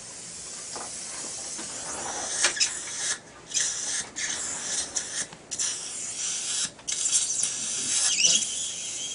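Dental surgical suction hissing at the mouth, cutting out abruptly several times as the tip is blocked or lifted, with a few light instrument clicks.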